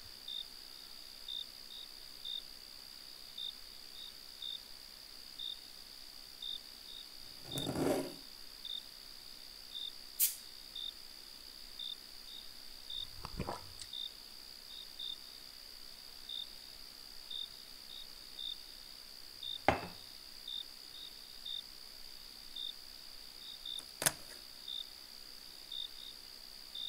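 Crickets chirping: a steady high trill with short chirps scattered irregularly over it, faint throughout. A few brief sharp clicks and knocks stand out over it.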